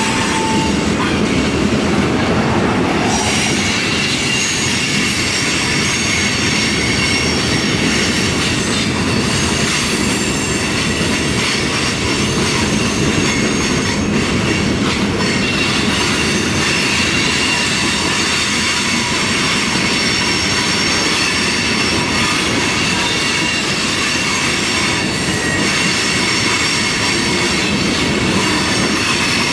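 Freight cars rolling past on curving track: a steady rumble of steel wheels on the rails with a high, sustained squeal of wheels against the rail. The sound shifts about three seconds in.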